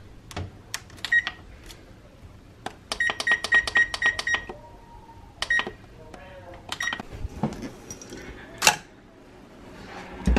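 Whirlpool oven's touch control panel beeping at each button press as the bake temperature is set to 385°F: short high beeps with button taps, including a quick run of about seven in a row. A sharp knock comes near the end.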